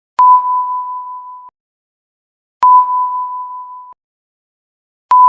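Electronic beep at one steady pitch, sounding twice, with a third starting near the end. Each beep opens with a click, lasts about a second and a half, fades a little and then cuts off.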